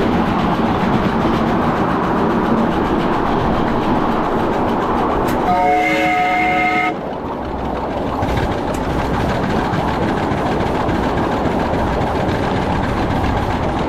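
Small-scale 2-6-0 steam locomotive running upgrade, a steady rush of running noise, with one whistle blast of about a second and a half, several notes sounding together, beginning about five and a half seconds in and cutting off sharply.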